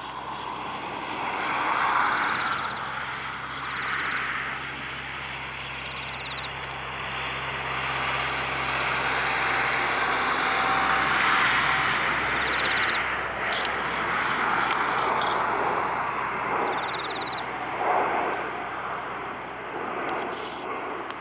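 Boeing 757-225 twin-engine jet airliner flying past overhead, a steady jet roar that swells and eases several times.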